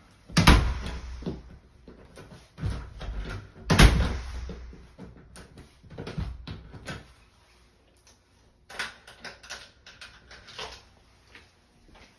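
A door being opened and shut, with two loud thuds about half a second in and about four seconds in, then quieter knocks and clicks.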